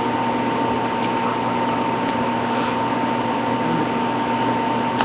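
Steady hiss with a constant high-pitched whine and a low hum underneath, like electrical or machine noise.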